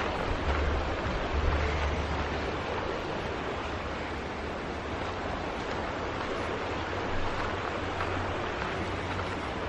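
Creek water rushing, a steady even noise, with low wind rumble on the microphone during the first couple of seconds.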